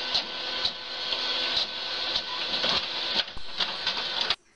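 Desktop printer running a print job: a steady mechanical whirr with regular clicks about twice a second, cutting off suddenly near the end.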